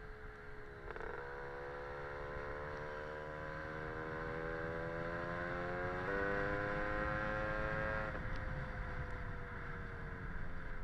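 Casa Performance SSR265 two-stroke engine on a Lambretta scooter running under way, with wind rumble. The engine note breaks about a second in and climbs steadily, steps up about six seconds in, then falls slowly after about eight seconds.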